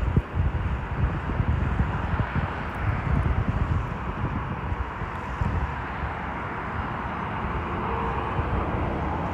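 Jet airliner on approach to land, a steady engine rumble and faint whine that rises slightly toward the end, over an uneven low rumble.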